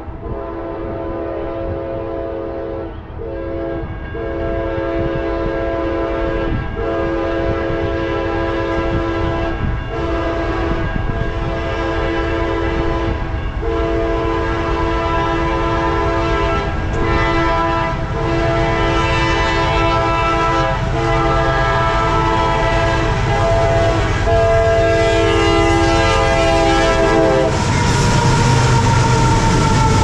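Air horn of CSX freight train 518's lead diesel locomotive sounding for the Pryor Street grade crossing: a multi-note chord held in long blasts with brief breaks between them, growing louder as the train approaches. The horn stops about two and a half seconds before the end, and the rumble of the passing locomotives and their wheels takes over.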